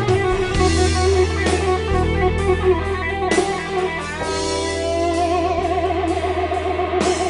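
Electric guitar playing an improvised lead solo over a backing track with a steady bass line. A run of notes slides up a little past halfway into a long held note with wide vibrato.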